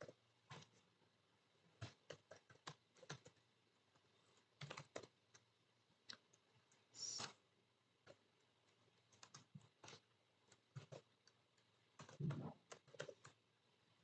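Quiet typing on a computer keyboard: separate key clicks in short, irregular runs, with a brief hiss about halfway through and a denser flurry of keystrokes near the end.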